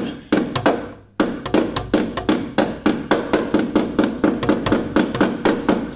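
Ball peen hammer tapping rapidly on a metal insulation retainer in a car's steel firewall, about five light ringing taps a second after a short pause about a second in, driving the retainer back through the firewall.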